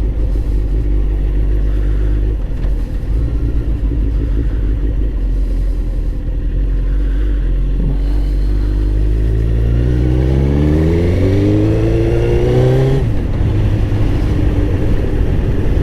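Motorcycle engine idling steadily, then revved in a slow climb for about five seconds before dropping back suddenly to idle.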